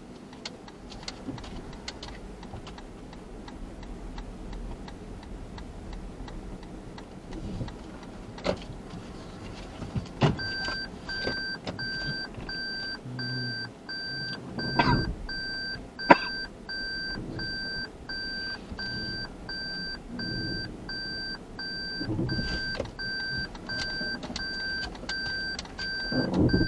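Car's reverse-gear warning chime beeping regularly in the cabin, about one and a half beeps a second, starting about ten seconds in as the car is put in reverse. A few knocks and clicks from inside the car, one sharp click about sixteen seconds in.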